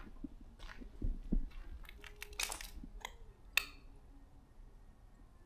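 Footsteps crunching over debris on a littered floor: a few crunches, then a sharp clink about three and a half seconds in.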